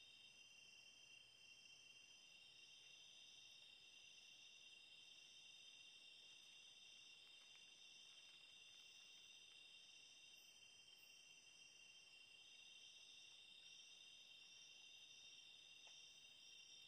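Faint, steady chorus of night insects in tropical forest: a shrill drone with a slowly pulsing higher trill over it.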